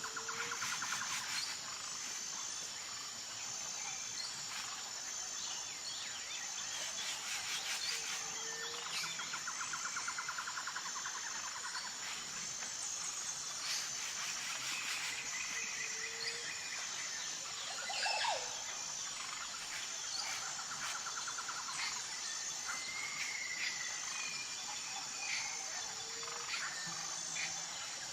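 Forest ambience: a steady, high, pulsing insect drone under scattered bird chirps and trills, with a short low call repeating about every eight seconds.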